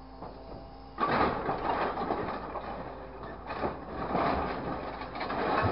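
Scrap metal clattering, scraping and knocking as a grapple truck's hydraulic grab digs into a scrap pile, starting suddenly about a second in. Before that, a steady hum.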